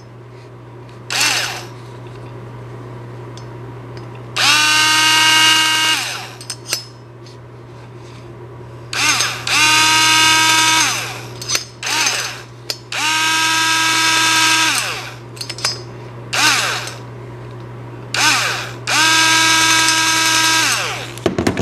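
Electric screwdriver backing out the cylinder head screws of a small nitro engine: four runs of a couple of seconds each, the motor whine rising as it spins up and falling as it stops, with a few short blips in between.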